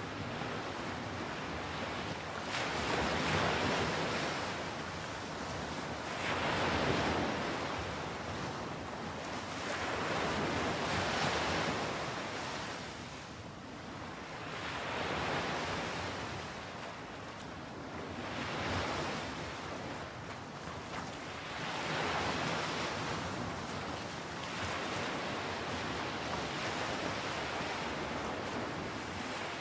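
Surf breaking and washing up a sandy beach, the rush of the waves swelling and fading about every four seconds.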